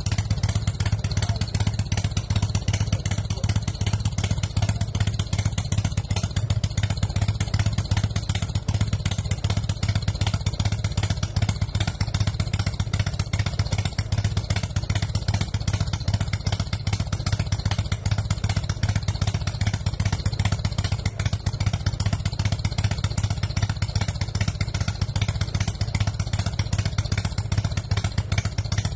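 Motorcycle engine running at a steady idle: a fast, even pulsing that holds one speed throughout, with no revving.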